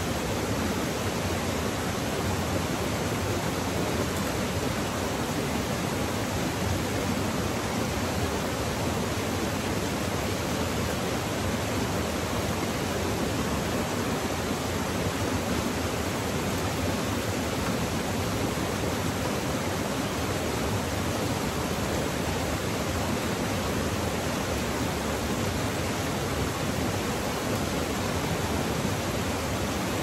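A waterfall and the rocky stream below it running steadily: an even, unbroken hiss of falling and rushing water.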